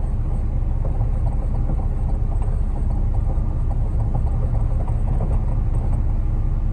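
Concrete mixer truck's diesel engine running steadily, a low rumble heard from inside the cab.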